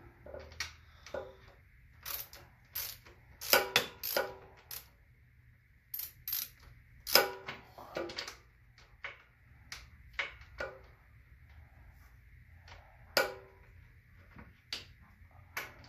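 Hand ratchet wrench on a socket extension clicking in irregular short runs while a bolt is loosened, with sharp metal clinks of the tool against the mower frame.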